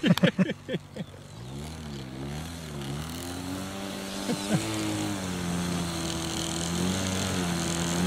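Radio-controlled model aircraft engine running at low throttle while the model taxis. Its pitch wavers up and down at first, then holds steadier as it grows louder, coming closer.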